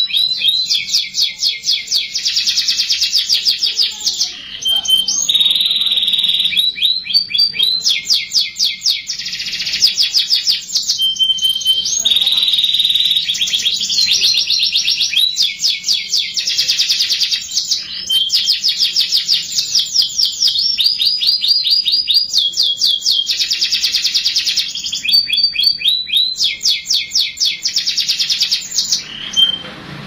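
Domestic canary singing a long, continuous song of fast rapid-fire trills, broken now and then by short held whistled notes.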